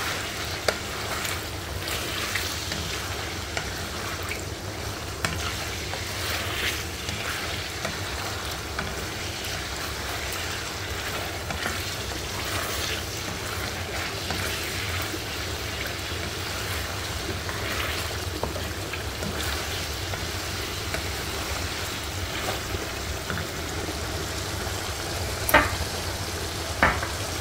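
Boneless chicken pieces and green chillies frying in hot oil in a karahi, a steady sizzle, stirred with a wooden spatula that scrapes and clicks against the pan. Two louder knocks near the end.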